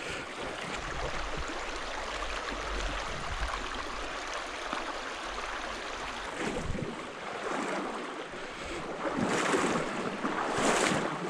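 Shallow freestone stream running over rocks: a steady rush of water, with wind rumbling on the microphone in the first half and louder swells of water near the end.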